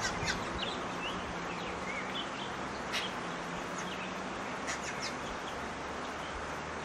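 Short, high bird chirps scattered over a steady outdoor background hiss, with a few sharp clicks at the start, about three seconds in and around five seconds in.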